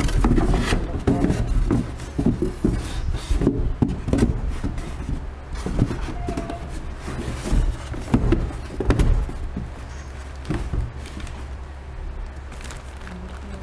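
Plastic bottles being packed into a styrofoam box: irregular knocks, scrapes and squeaks of plastic against styrofoam, busiest in the first ten seconds, over a low steady hum.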